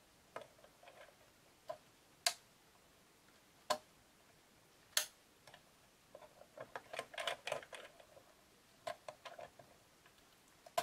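A Torx driver working the corner socket screws of a spectrum analyser's CRT bezel: scattered sharp clicks and small taps, the loudest three single clicks a little over 2, near 4 and about 5 seconds in, then a denser run of small clicks and rattles in the middle part.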